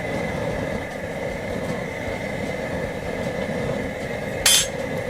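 Steady rushing noise of the crawfish boil pot on its burner, with one sharp clink about four and a half seconds in.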